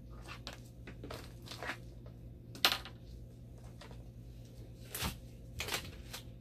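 Hands handling small objects: scattered light clicks and rustles, the sharpest click about two and a half seconds in, over a steady low hum.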